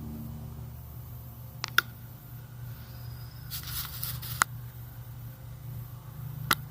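A few sharp metal clicks and a brief scrape from the removed front axle and wheel parts of a motorcycle being handled, with a steady low hum underneath.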